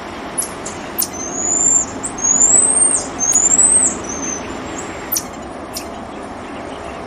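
Black-tufted marmoset giving phee calls: three long, high whistles, each rising slightly and ending in a quick drop, then a short fourth note. Short sharp high chirps come before and after, over a steady background hum.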